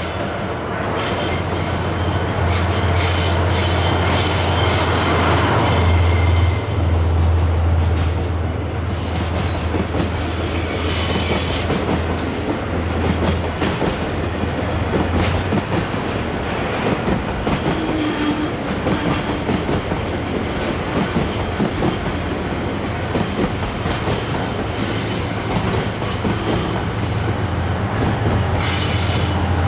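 Diesel-hauled freight train running past: a steady low locomotive engine hum, wheels clattering over the rail joints, and a high wheel squeal.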